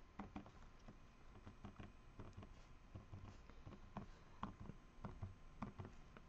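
Faint, irregular light taps and scratches of a pen tip working over a small paper die-cut.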